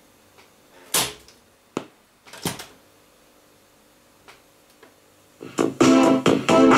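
Sharp GF-305SB boombox's cassette deck being worked: a handful of mechanical clunks and clicks from its cassette door and keys, the loudest about a second in. Then about five and a half seconds in, music with keyboard starts playing from the cassette through the set's speakers.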